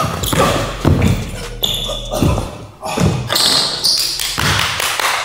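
Basketball being dribbled on an indoor court floor: a steady run of bounces, about one every three-quarters of a second.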